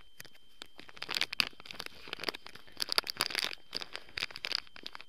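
Plastic packet of soft plastic fishing lures crinkling and crackling as it is handled, in irregular bursts starting about a second in and stopping near the end.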